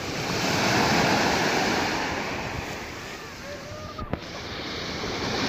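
Small sea waves washing onto a shore, the wash swelling, easing and building again, with wind buffeting the microphone. A single sharp click comes about four seconds in.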